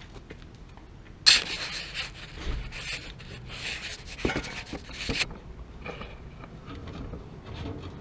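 Camera being handled and repositioned close to its microphone: a sharp bump about a second in, then about four seconds of hissy rubbing and scraping with a couple of knocks, which stops abruptly.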